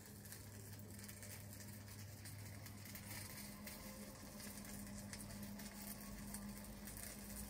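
Breaded pork chops frying slowly in a cast iron pan: a faint, steady sizzle and crackle over a low steady hum.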